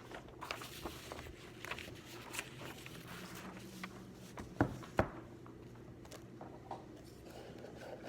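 Quiet study-desk sounds: scratchy writing, small rustles and light taps, with two sharper knocks close together about halfway through, over a faint steady hum.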